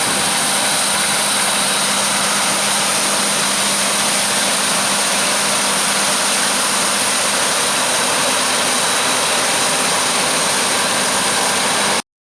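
Harvest machinery running steadily: an even engine drone under a strong high hiss, unchanging until it cuts off abruptly near the end.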